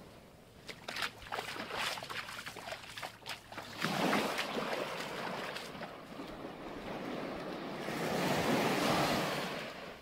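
Small waves washing onto a sandy beach: a spell of sharp crackles at first, then a swell of surf about four seconds in and a second, louder one near the end that fades away.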